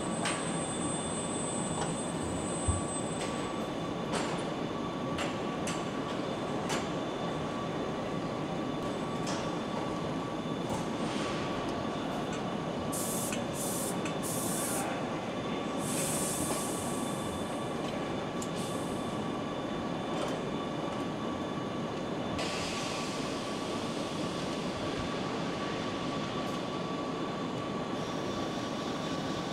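Factory assembly-line ambience: a steady machinery hum with a constant mid-pitched whine, scattered small clicks and a sharp knock about three seconds in, and hissing bursts in the middle and from about two-thirds of the way through.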